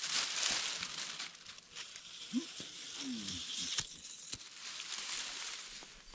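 Rustling and crinkling handling noise with scattered small clicks, and two brief low pitched sounds a little before the middle.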